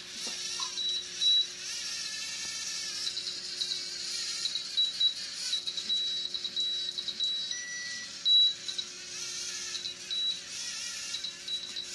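LEGO Mindstorms robot driving itself along a line: its small geared electric motors whir steadily, with short high-pitched tones coming and going over and over and a brief lower tone about eight seconds in.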